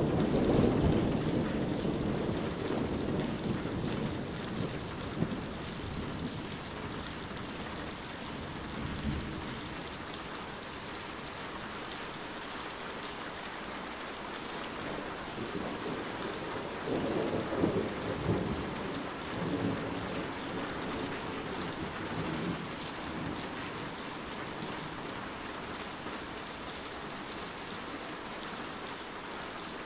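Steady heavy rain with thunder rumbling. One rumble fades over the first few seconds, and another rolls in about halfway through.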